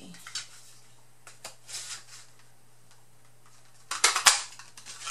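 Cardstock rustling as it is handled, then about four seconds in a short burst of sharp clicks as a scallop-edged paper punch is squeezed and cuts through the cardstock.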